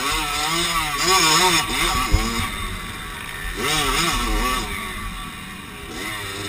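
Dirt bike engine revving up and down as the rider works the throttle and gears through the turns, heard from a camera on the bike, with one sharp knock about two seconds in. The engine eases off as the bike slows near the end.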